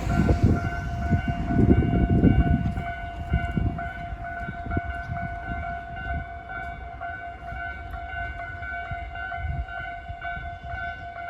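Two electronic level-crossing alarms on the Tobu Noda Line ring in a steady repeating pattern. The two sides run at different tempos, and one alarm has an unusual tone. A train rumbles past over the first few seconds and fades away.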